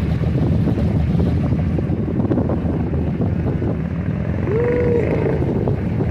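Vehicle engines idling in traffic at an intersection: a steady low rumble, with wind buffeting the microphone.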